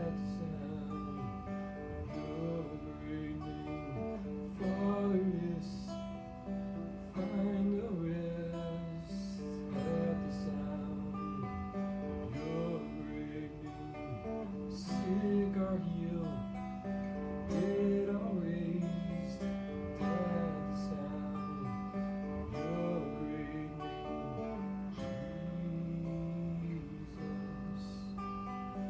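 Acoustic guitar strummed steadily, with a voice carrying a melody over the chords.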